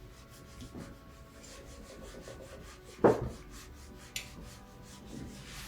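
A hot clothes iron pressed and rubbed over paper laid on a copper-clad circuit board, a low scraping sound, with a sharp knock about three seconds in and a short click a second later.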